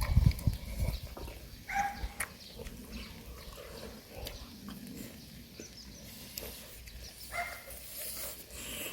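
Low thumps at the start, then two brief animal calls, one about two seconds in and one near the end.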